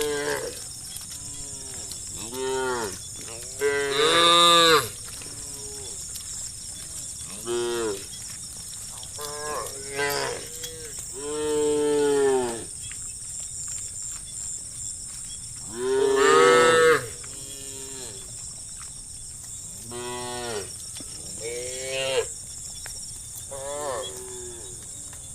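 Cattle mooing: about ten separate moos of different lengths and pitches from several cows, the loudest about four and sixteen seconds in.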